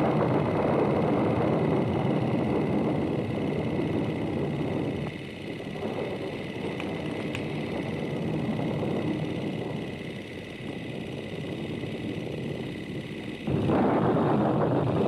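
Rushing, wind-like noise that eases off about five seconds in and swells back near the end, under a steady high ringing tone: the ambient opening of a song.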